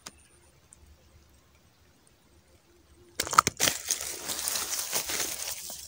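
Near silence, then about three seconds in a loud crinkly rustling that keeps going to the end, the sound of handling close to the microphone.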